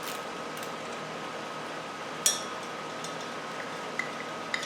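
A few light metallic clinks of small motorcycle hardware (nut and flat washers) being handled, the sharpest a little over two seconds in, over a steady shop hum with a faint constant whine.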